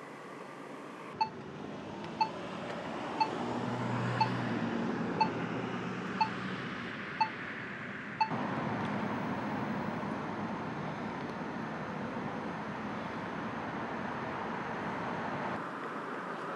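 Crosswalk push-button locator tone beeping about once a second, eight short beeps, over street noise with a low hum. After the eighth beep it gives way suddenly to a steady noisy hiss.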